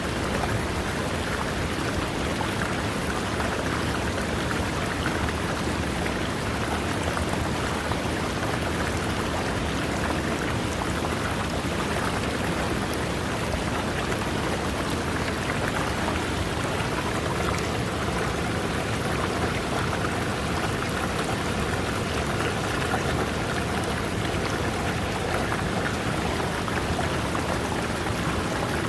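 River water running over rocks: a steady, even rush of water with no breaks or changes.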